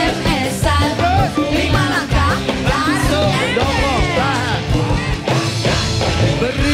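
Dangdut band music with a voice singing over it.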